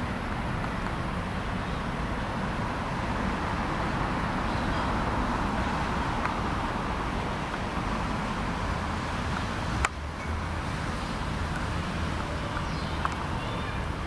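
Steady outdoor background noise, a low rumble with an even hiss, broken by one sharp click about ten seconds in.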